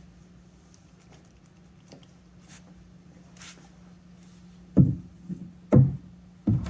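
Three dull thumps about a second apart near the end, from leather-hard clay slabs and tools being worked on a worktable, with a few light taps before them. A steady low hum runs underneath.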